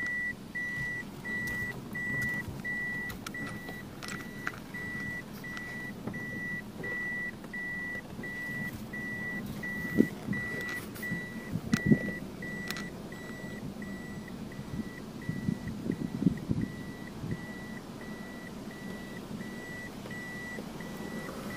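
A car's in-cabin reversing warning beeper sounding evenly about twice a second as the car backs into a parking spot, fainter in the second half, over a low engine hum. A few short knocks come near the middle.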